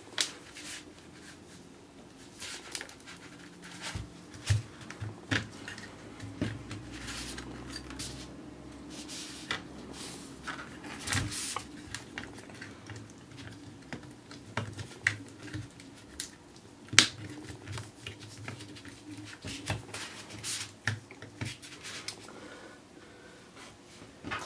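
Scattered small clicks, taps and scrapes of hands seating a tablet's main circuit board back into its housing.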